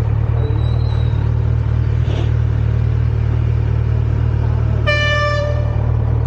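Kawasaki Z900 inline-four motorcycle engine running steadily on the road, with a vehicle horn honking once, for under a second, about five seconds in.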